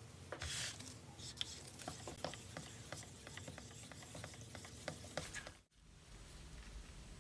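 A flat stirrer scraping and knocking against the inside of a plastic bucket as a watery mixture is stirred, with many small clicks and a brief splashy hiss about half a second in. The sound stops suddenly about five and a half seconds in, leaving only a faint hiss.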